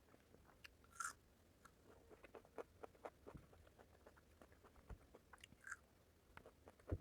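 Close-up chewing and biting of food, with many small wet mouth clicks and two louder crunches, one about a second in and one near the end.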